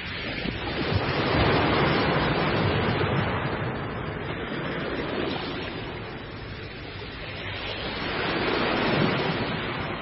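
Sea surf: waves breaking and washing in a steady rush. It swells to a peak a second or two in and again near the end.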